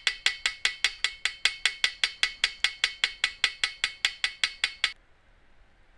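Rapid light hammer taps on a trombone's brass tubing, about five a second, each with a short metallic ring, knocking down high spots in the brass; the tapping stops about five seconds in.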